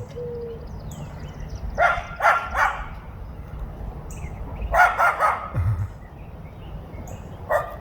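A dog barking in short runs: about three barks, then three or four more, then a single bark, warning off a passer-by as a guard dog does.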